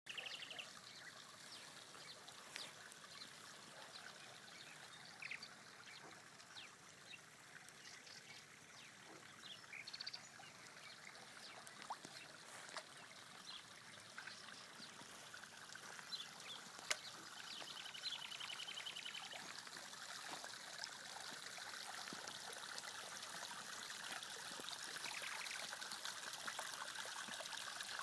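A stream trickling and running steadily, growing louder in the second half. Scattered short high calls sound over it, and a rapid trill comes about two-thirds of the way through.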